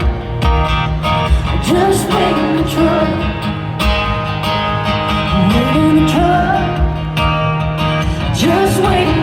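Live country song: a woman sings phrases that swoop up into held notes, over a band with acoustic guitar, sustained chords and steady drum hits.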